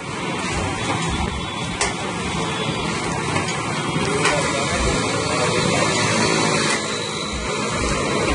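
Two-head paper plate making machine running: a steady mechanical noise with a few sharp clicks as the press dies work.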